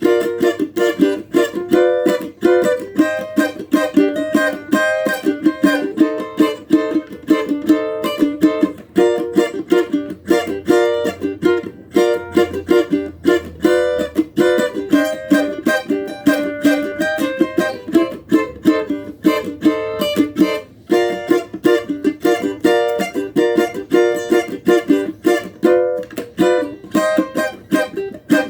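Cavaquinho strummed in a fast, steady rhythm of chords, with no singing.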